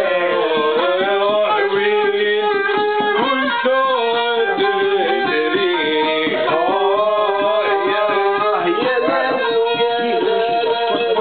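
Live music: a violin held upright on the knee plays a gliding, ornamented melody, with a voice singing along.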